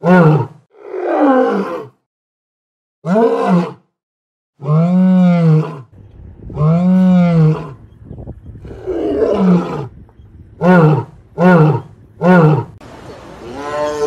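Male lion roaring in a bout. It gives several long, deep calls that rise and fall in pitch, then a run of short grunting roars about two-thirds of a second apart. Another long call starts just before the end.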